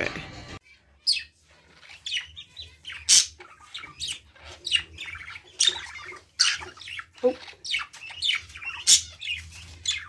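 Pet budgerigar and cockatiel chirping and squawking: a string of short, sharp calls, one every half second to a second, starting about a second in.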